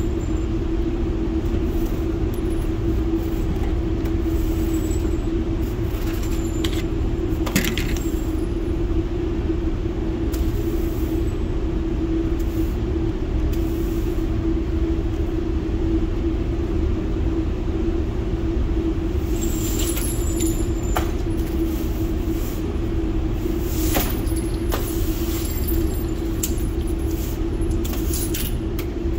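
Steady rumbling hum of an indoor shooting range's ventilation fans, with a constant droning tone and a few faint clicks and clinks. No gunfire.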